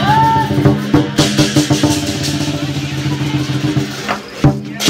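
Lion dance percussion: drum beats and cymbal clashes struck in a quick, uneven rhythm, with a loud strike near the end, over a steady low hum.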